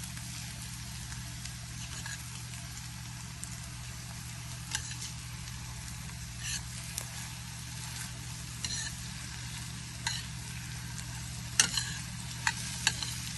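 Eggs with chopped garlic, bell pepper and coriander sizzling in a frying pan, with a steady hiss and occasional short taps and scrapes of a utensil stirring them, more frequent near the end.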